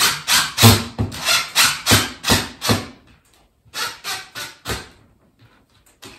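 Cordless drill working a screw in a ceiling fixture, run in short rapid bursts about three a second. It pauses about three seconds in, then gives a few more bursts.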